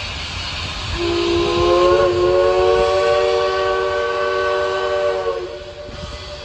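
Southern Railway 154's steam whistle blowing one long blast of about four and a half seconds, starting about a second in. Its chord of several notes rises slightly in pitch as it opens, then holds steady before dying away, over a steady background hiss.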